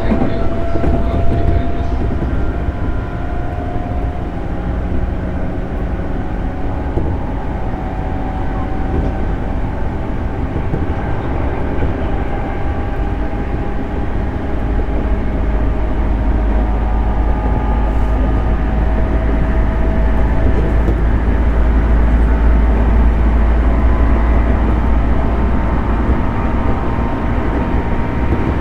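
A JR 211 series electric train running along the track: a steady rumble of wheels and running gear, with a faint whine that climbs slowly in pitch early on, and the low rumble growing heavier about halfway through.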